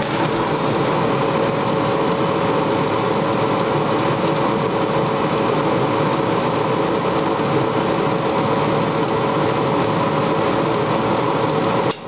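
Gas clothes dryer's drive motor and drum running with the front panel off, a steady mechanical rumble with a faint hum, while the glow-bar igniter heats before the gas lights.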